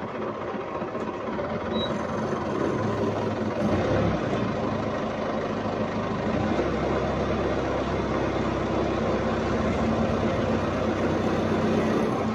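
Forklift engine running while the lift levers are worked, getting louder about two seconds in and holding at the higher level.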